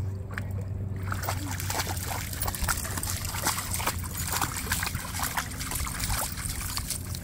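A dog wading through shallow water, splashes and sloshes from its legs with each step, starting about a second in.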